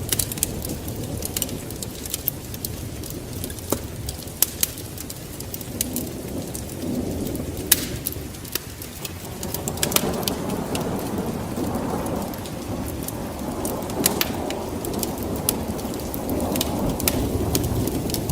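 Steady rain with a low rumble of thunder that swells about halfway through and again near the end, and sharp crackling pops scattered all through.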